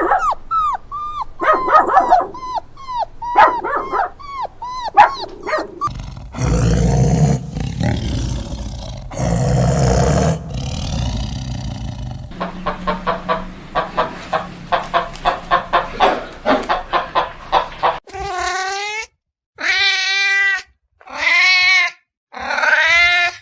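Farm animal calls in a run, one kind after another: about six seconds of quick dog-like barking, a harsh noisy stretch, a fast string of short calls, then four long wavering calls with silent gaps between them.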